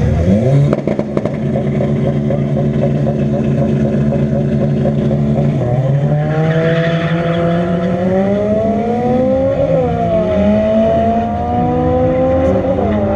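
Honda Civic Si engine under hard acceleration, its note climbing steadily in pitch. The pitch drops suddenly at gear changes about six seconds in, about ten seconds in and near the end.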